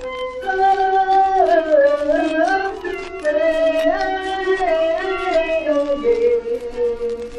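Music from an early-1930s Cantonese song recording, played off a 78 rpm shellac record: a melody in two parallel lines moving up and down together, with the disc's surface crackle underneath.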